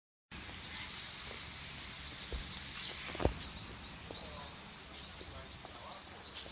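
Outdoor ambience with small birds chirping in short repeated calls over a steady low background rumble, and one dull thump about three seconds in. The sound cuts in abruptly just after the start.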